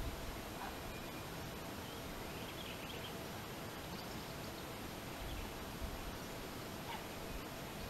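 Quiet riverbank ambience: a steady hiss with a few faint, scattered bird calls and brief low wind rumbles on the microphone.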